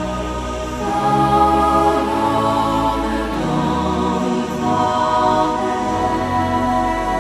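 Background music of slow, long held notes over a low drone.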